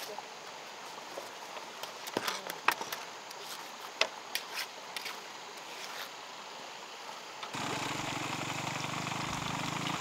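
Scattered sharp knocks and clacks from hand work on a wooden gate frame, with stones and wood being struck and packed around the base of the posts. About seven and a half seconds in, a steady rushing noise takes over.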